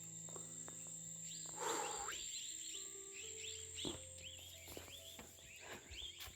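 Outdoor rural ambience: a steady high-pitched insect drone throughout, with a rustle about one and a half seconds in and a run of short, quick rising chirps in the second half.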